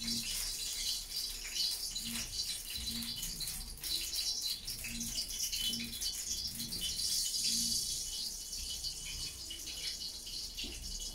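Denim fabric rustling and crinkling as it is handled, over a steady hiss.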